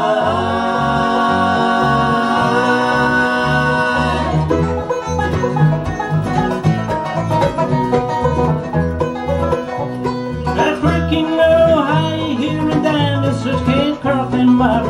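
Bluegrass band playing an instrumental break, the banjo out front with guitar behind it. A long held chord opens the break, then about four seconds in it turns into quick picked runs over a steady beat.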